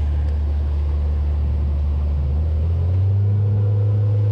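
Suzuki outboard motor running under way, a steady low hum that rises in pitch and gets a little louder about three seconds in as the throttle is pushed forward.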